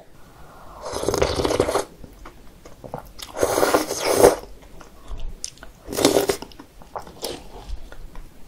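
Close-miked slurping of kongguksu noodles from a thick, icy cold soy-milk broth: three long wet slurps, about a second in, around the middle and about six seconds in, with softer chewing between them.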